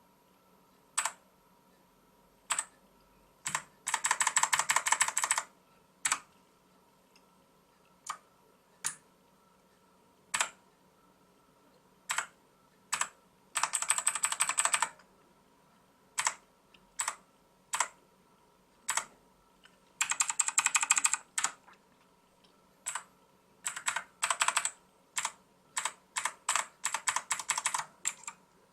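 Xenics STORMX TITAN MARK VII mechanical keyboard with clicky blue switches being pressed. Single keystrokes come about a second apart, broken by three short runs of rapid, repeated clicking. The strokes turn quicker and more irregular near the end, like typing.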